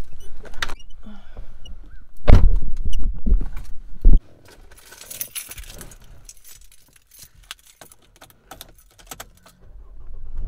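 Getting into a car: rumbling handling and wind noise, then a car door shutting with a loud thud about four seconds in. After the thud the sound drops to a quiet cabin with small rattles and clicks.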